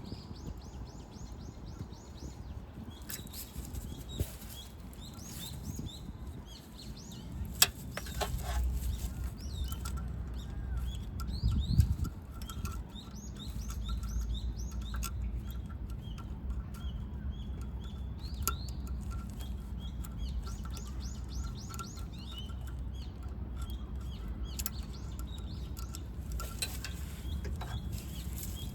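Small birds chirping in repeated quick clusters, with a few sharp clicks or knocks and a low background rumble.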